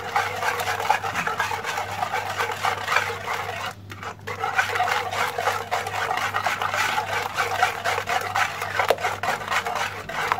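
Wire hand whisk beating eggs and sugar in a large dish: fast, steady strokes of the whisk scraping and clicking against the dish, with a brief pause about four seconds in. The sugar is being whisked into the eggs until it dissolves and leaves no graininess.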